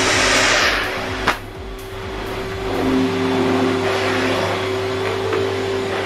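Miele C3 canister vacuum cleaner running, a steady motor hum under a rush of suction hiss. The hiss is strongest at first, drops after a sharp click about a second in, then builds again.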